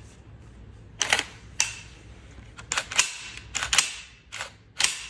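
Winchester SX4 semi-auto shotgun's bolt being racked back and let go by hand over and over: about eight sharp metallic clacks in rough pairs, the freshly lubricated action being worked in after reassembly.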